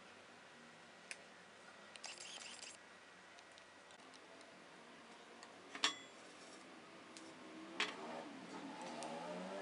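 Faint kitchen handling sounds over a low hiss: a few sharp clicks and one ringing metallic clink about six seconds in. A wavering pitched sound swells near the end.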